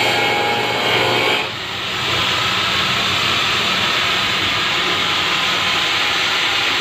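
Electric angle grinder running and cutting into the top of a blue plastic barrel. The sound dips briefly about a second and a half in, then goes on as a steady, hissing grind.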